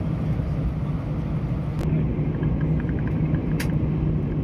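Steady low rumble and hum of an Airbus A320's engines heard inside the passenger cabin while the aircraft is on the ground before takeoff. A single sharp click comes about three and a half seconds in.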